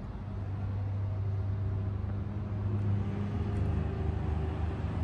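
Steady low drone of a motor vehicle engine running, with a slight rise in pitch about three seconds in.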